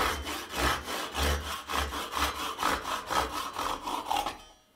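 Hand saw cutting through an old wooden hammer handle at the head, in even back-and-forth strokes about two a second, stopping shortly before the end.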